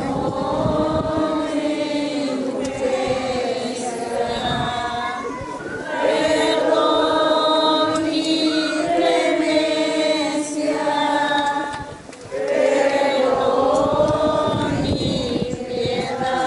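A group of voices singing a slow hymn without accompaniment, in long held phrases with two short breaths between them.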